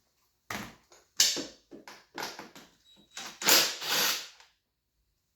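A string of short clattering and scraping sounds as metal parts and tools are handled while working on a dirt bike, loudest around three and a half seconds in.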